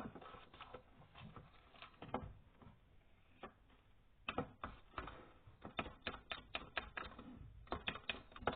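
Spoon clicking and scraping against a bowl as slime mixture is stirred: quick, irregular taps, sparse at first, then coming several a second after a short lull midway.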